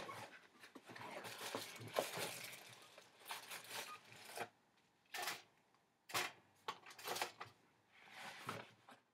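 Faint rustling and crinkling of a cardboard waffle box and its packaging as frozen waffles are taken out, then several short clicks and knocks as they go into a four-slice toaster and its lever is pushed down.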